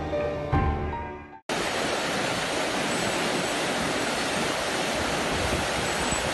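Background music for about the first second and a half, which cuts off abruptly. Then comes the steady rush of a fast-flowing river running over rocks.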